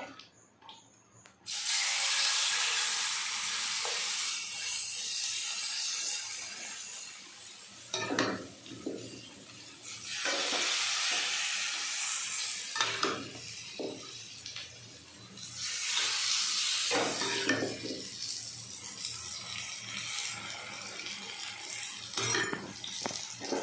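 Batter-coated snake gourd pieces frying in hot oil in a pan: a sizzle that starts suddenly about a second and a half in and swells and fades. A few clinks and scrapes of a spatula against the pan.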